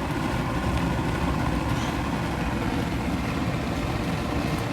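Homemade mini jet engine running, a steady rushing noise with a faint constant tone over it.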